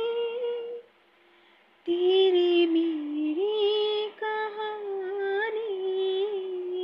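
A woman singing a slow Hindi film song alone, without accompaniment, holding long sustained notes. Her voice drops out for about a second near the start between phrases.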